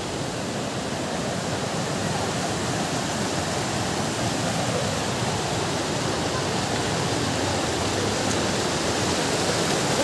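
A steady rushing noise, rising slightly in loudness.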